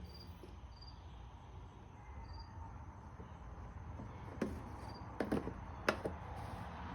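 Crickets chirping faintly over a low steady background, with a few sharp knocks from about four and a half to six seconds in.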